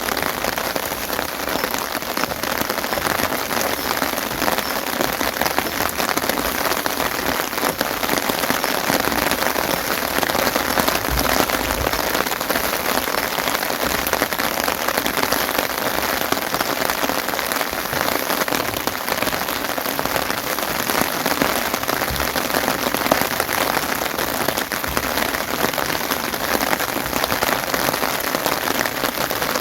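Steady rain falling, a dense, even spread of drops hitting surfaces with no let-up.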